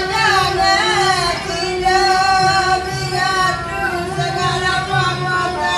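Woman singing a slow, ornamented Mak Yong vocal line, with held notes that bend in pitch, accompanied by a bowed rebab.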